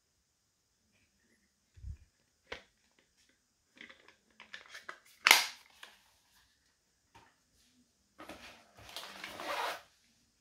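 Drill-set parts and packaging being handled by hand: scattered light knocks and clicks, one sharp snap about five seconds in, then about a second and a half of rustling and scraping near the end.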